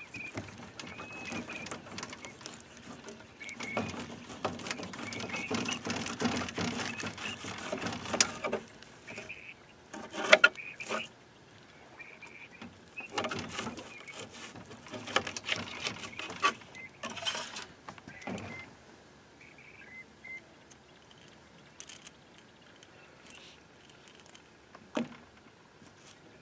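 Rustling, clicks and several sharp knocks from handling cut bait and tackle in a boat while a hook is re-baited. The handling is busiest over the first several seconds, followed by separate knocks, and quietens in the last third.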